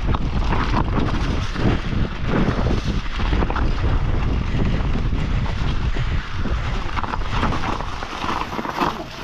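Wind buffeting the microphone on a mountain bike's handlebars during a fast descent, with the knobby tyres rumbling and the bike jolting and rattling over a rough dirt track. The noise is loud and steady, easing a little near the end.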